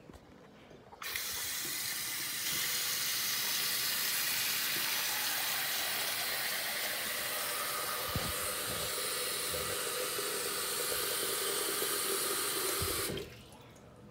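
Water tap running full into a tub, a steady gushing splash. It is turned on about a second in and shut off about a second before the end.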